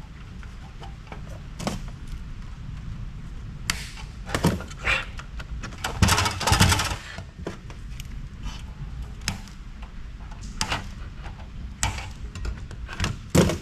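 Scattered clunks, clicks and knocks of parts and tools being handled while a stereo power amplifier is dismantled, with a short burst of rattling about six seconds in.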